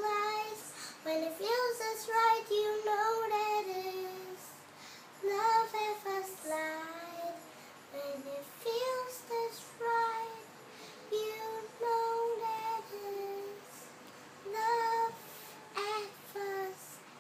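A young girl singing solo with no accompaniment, in drawn-out phrases with short breaths between them.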